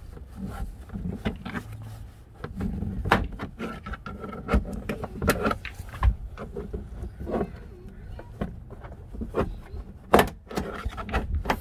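Plastic clicks, snaps and scraping as a tailgate's upper interior trim panel is pried off its retaining clips with a plastic trim pry tool, over a low rumble. The loudest snap comes about ten seconds in.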